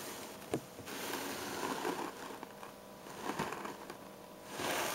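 Faint handling noise: soft rustling swells with a few light clicks, about half a second in and again after three seconds.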